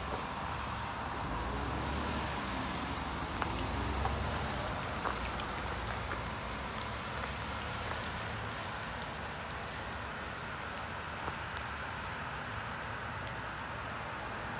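Full-size SUV driving slowly across a wet parking lot: engine running and tyres hissing on wet asphalt, loudest in the first few seconds, over a steady hiss.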